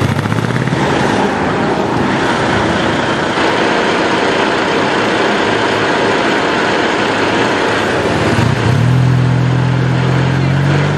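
Busy street traffic with people talking over it. About eight and a half seconds in, a steady low engine hum starts up and holds, as from a motorcycle or scooter idling close by.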